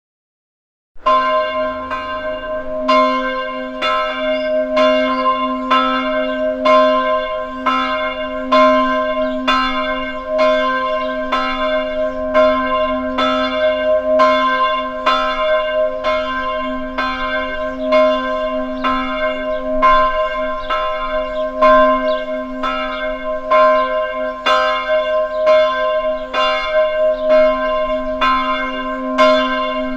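A large bell struck over and over, about one and a half strikes a second, its tone ringing on steadily between strikes; it starts suddenly about a second in.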